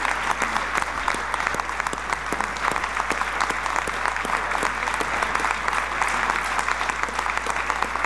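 Large audience applauding: dense, sustained clapping that holds at an even level throughout.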